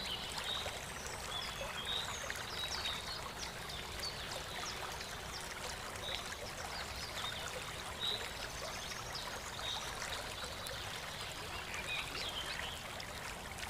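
Small stream running and trickling steadily, with short high chirps every couple of seconds.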